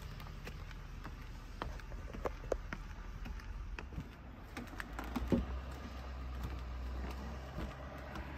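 Footsteps climbing wooden stair treads and crossing a wooden deck: irregular light knocks and clicks over a low steady rumble.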